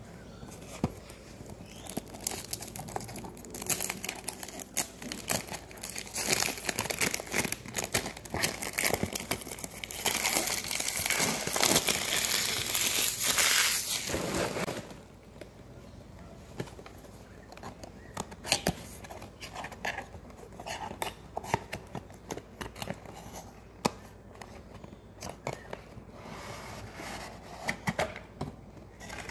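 Packaging of a perfume box being crinkled and torn open: dense, loud crinkling and tearing for about ten seconds, stopping about halfway through, then quieter scattered rustles and taps as the pink cardboard box's flaps are pulled open.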